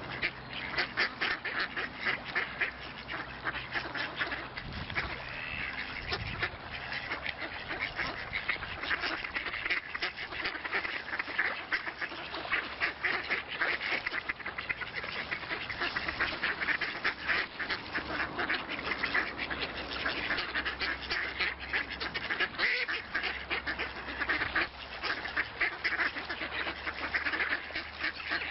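A flock of ducks quacking, many short calls overlapping with no break.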